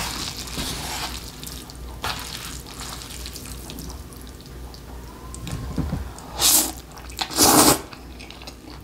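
Metal chopsticks mixing sauce-coated bibim-guksu noodles in a bowl, a soft wet squishing with light clicks. Near the end come two loud slurps of noodles, the second longer.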